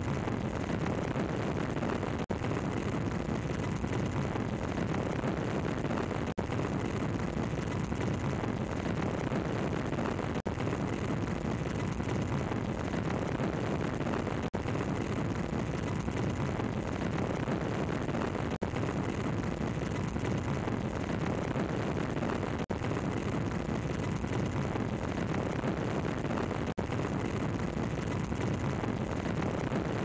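Steady roar of an aircraft in flight heard from on board, engine noise mixed with wind rush, with a faint steady whine and a brief dip about every four seconds.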